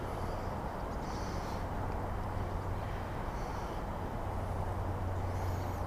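Steady low outdoor background rumble with a few faint, short high chirps.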